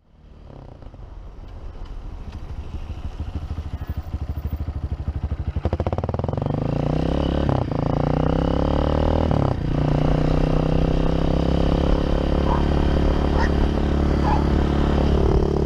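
Honda CRF230F dirt bike's single-cylinder four-stroke engine running as the bike rides along. It fades in from silence over the first few seconds, then dips briefly twice, about seven and a half and nine and a half seconds in, before running on steadily.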